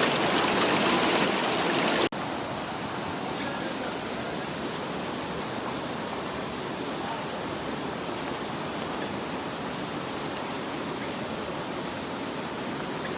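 Rushing water of a river stream at a small waterfall, a loud even hiss. About two seconds in it cuts abruptly to a quieter, steady water noise with a faint high-pitched steady tone over it.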